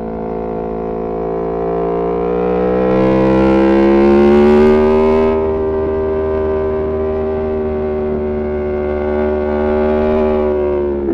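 Aprilia Tuono V4 Factory's V4 engine running through an Arrow GP2 exhaust with the dB killer removed, rising in pitch as it pulls harder over the first few seconds, then holding a steady pitch under load, easing slightly near the end.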